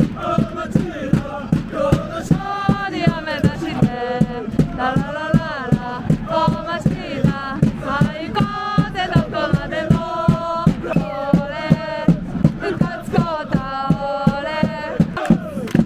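Football supporters singing a chant together to a steady drum beat, about three beats a second.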